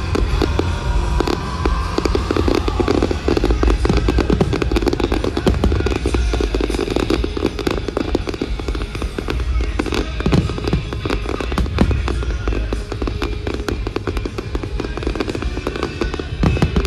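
Fireworks display: a steady stream of bangs and crackles from shells bursting, over loud show music with heavy bass.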